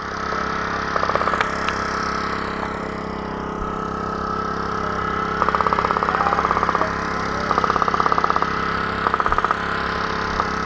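A steady engine-like hum, with several bursts of rapid, evenly spaced clicking, each lasting about a second.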